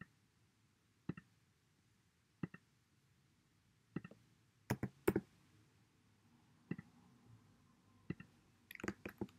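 Faint, sharp clicks of a computer mouse and keyboard: single clicks every second or so, a quick run of clicks about five seconds in and another near the end.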